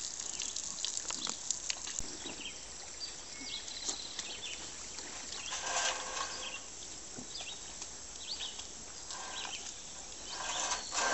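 Water from a garden hose spraying onto muddy pigs, a steady hiss with two louder gushes about six seconds in and near the end, amid short animal sounds.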